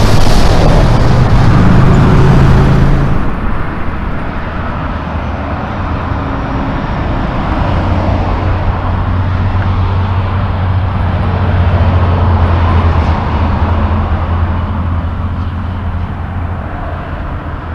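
Diesel Class 8 semi-trucks driving past, with a low engine drone and tyre and road noise. A loud close pass ends suddenly about three seconds in. A more distant truck then pulls by with a steady low engine drone, and the sound fades toward the end.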